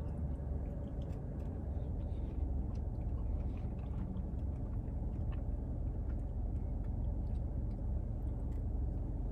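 Steady low rumble of a car's engine idling, heard from inside the cabin, with faint scattered clicks and quiet eating sounds.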